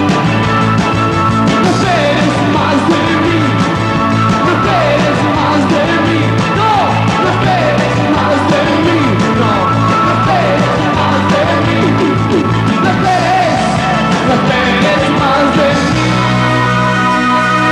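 A rock band playing live, with electric guitar, bass guitar and drums, and sliding melodic lines over a steady, dense mix.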